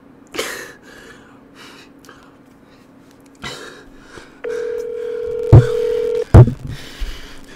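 A phone on speaker playing the ringing tone of an outgoing emergency call: one steady tone about two seconds long, starting about halfway in. Two loud thumps come near the end, with light taps and rustles before the tone.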